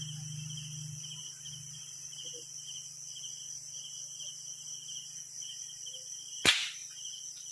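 One sharp shot from a PCP air rifle about six and a half seconds in, over steady night insects such as crickets trilling in a pulsing rhythm and a low hum.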